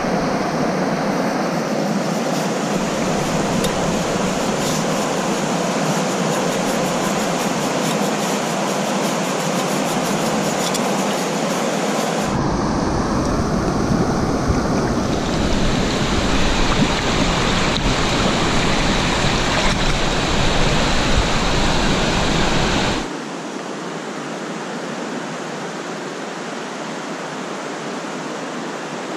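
Rushing mountain river, the Duckabush, running steadily close by with a full, even rush of water. The sound shifts at about twelve seconds and drops to a quieter, more distant rush at about twenty-three seconds.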